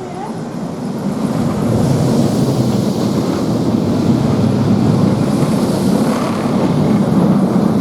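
Mack Rides roller coaster train running along its steel track on a test run: a steady rumble that swells about a second in and holds.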